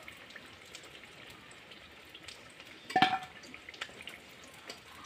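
Hot oil sizzling and crackling faintly as banana-flower fritters deep-fry in an aluminium karahi. About three seconds in, a sharp metallic clang rings briefly as the metal slotted spoon knocks against the pan.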